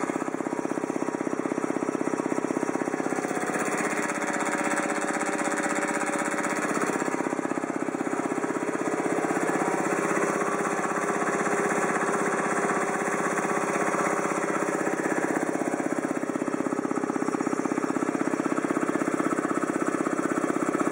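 Ingersoll Rand T30 two-stage piston air compressor, driven by a Baldor electric motor, running steadily with a rapid, even pulse.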